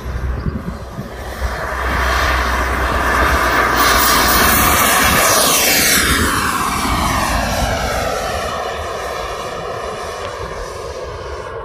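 KingTech K-180 jet turbine of a model Viper Jet at full power on takeoff and climb-out: a loud jet rush that builds, peaks as the jet passes about five seconds in, and then fades with a downward sweep in pitch as it climbs away.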